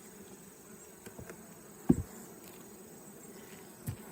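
Honey bees buzzing steadily around an open hive, with a few short knocks from handling the hive; the loudest knock comes about two seconds in.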